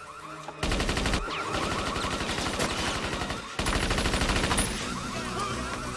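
Rapid automatic gunfire from a submachine gun, one long burst starting under a second in and a second burst after a brief break past the middle. An electronic alarm whoops over and between the bursts.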